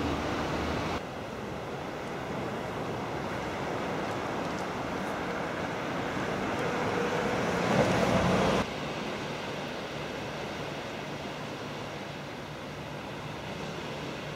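Outdoor seafront ambience, mostly wind buffeting the camera microphone. The sound changes abruptly about a second in. It swells with a faint steady hum for a couple of seconds before cutting off sharply about eight and a half seconds in.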